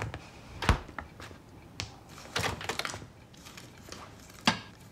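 About half a dozen light kitchen knocks and clicks, as dishes, utensils and a cupboard are handled to make a sandwich. The loudest knock comes near the end.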